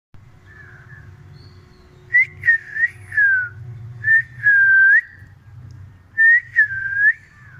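A person whistling short high notes in three groups, some sliding down and a couple of longer ones dipping and rising again, over a steady low hum.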